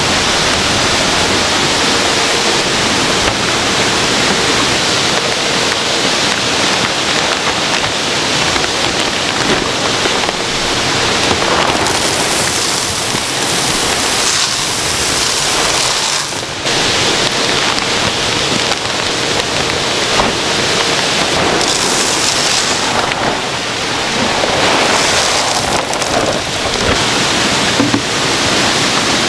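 Steady rushing and splashing of water pouring into indoor salmon-farm tanks, with a brighter hiss for a few seconds around the middle.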